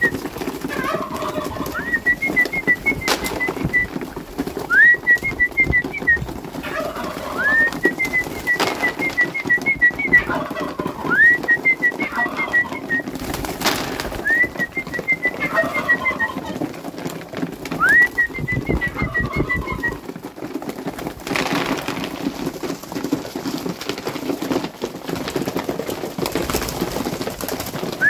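Domestic pigeons cooing and feeding on grain, with occasional sharp wing flaps as birds land and jostle. A high whistled call, a rising note followed by a quick run of pips, repeats every couple of seconds until about two-thirds of the way through.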